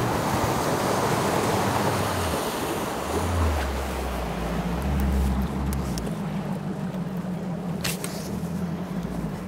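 Bass boat's outboard motor running at speed, with wind and water rushing past the hull. A few sharp knocks come in the second half.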